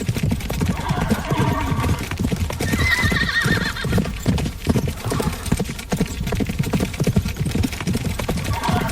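Horses galloping: a dense, rapid run of hoofbeats, with horses whinnying about a second in, again around three seconds in, and once more near the end.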